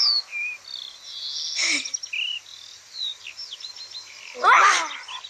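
Birds chirping: short, high chirps and whistled glides. A louder rising cry comes about four and a half seconds in.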